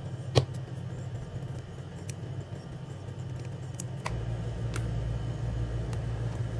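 Metal clicks of split-ring pliers working a steel split ring onto an assist hook: one sharp click about half a second in, then a few fainter ticks. Under them runs a low steady rumble that gets louder about four seconds in.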